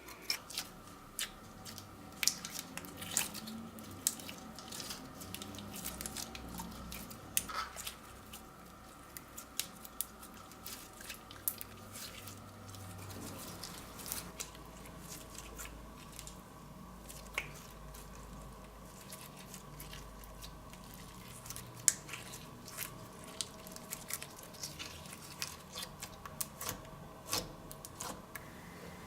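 Slime being mixed and worked by hand: a run of irregular sticky clicks, pops and squelches, some sharp, over a faint steady background hum.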